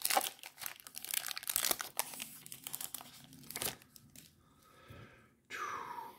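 Plastic wrapper of a trading-card pack being torn open and crinkled for about the first four seconds, followed by quieter handling of the cards.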